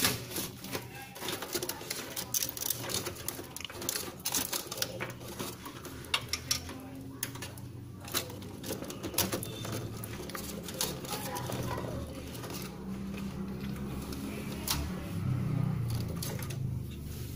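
Scattered clicks, knocks and rattles of hands working inside an open desktop PC case, handling plastic and metal parts and cables around the motherboard. A low murmur comes in during the last few seconds.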